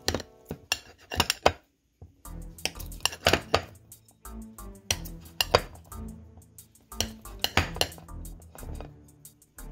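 Metal table knife clicking against a ceramic plate again and again as it slices down through a stick of butter, the clicks sharp and irregular, several a second at times.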